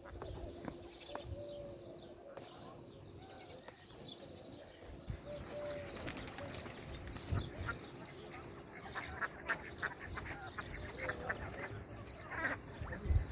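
Ducks quacking in short bursts among scattered bird chirps, busiest in the second half. A faint steady hum runs underneath.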